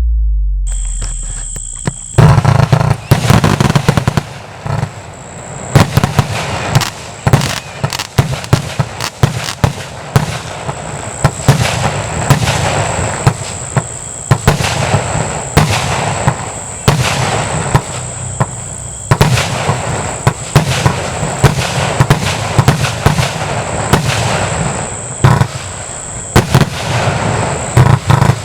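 A 240-shot compound fireworks cake firing: a rapid, continuous barrage of shots with sharp bangs and crackling, starting about two seconds in, after a short low rumble.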